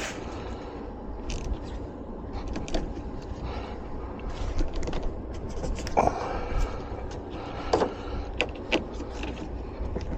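Metal hand tools clinking and scraping on battery hardware, with scattered sharp clicks and a couple of louder clanks, over a steady low rumble.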